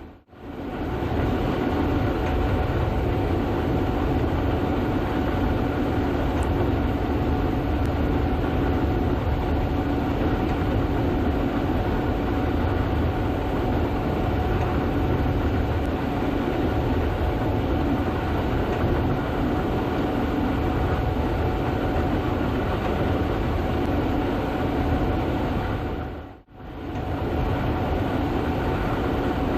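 Gleaner S98 combine harvesting soybeans, running steadily with a continuous mechanical rumble and a steady whine from its drives. The sound drops out briefly once near the end.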